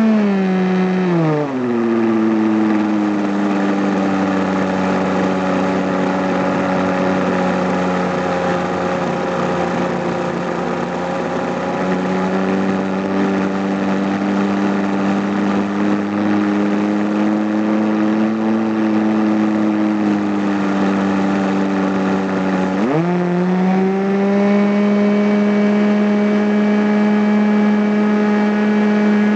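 Radio-controlled model airplane's engine heard from a camera aboard the plane, running with a rush of wind. Its pitch drops in the first two seconds as it throttles back, holds steady, then about 23 seconds in it revs sharply back up and holds the higher pitch.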